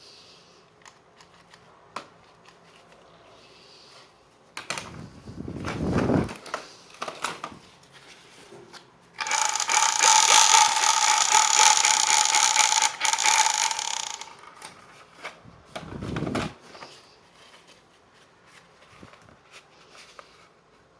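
Light plastic handling clicks, then a battery-operated toy gun runs loudly and steadily for about five seconds, starting suddenly about nine seconds in and cutting off.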